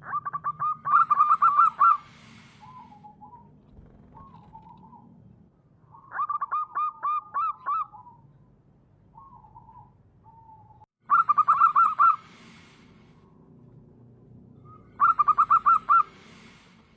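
Zebra dove (perkutut) cooing: four bouts of rapid, staccato repeated coo notes, each lasting a second or two, with softer single coos in between.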